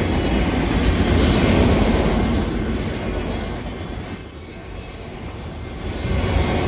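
Empty Union Pacific autorack freight cars rolling past on the rails, a steady rumble of wheels on track. The rumble dips for a second or two past the middle, then comes back up.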